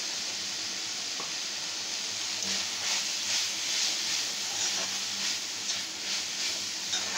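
Banana flower frying in oil in an iron kadai, a steady sizzle, with a metal spoon stirring and scraping through it, busiest from about two and a half seconds in.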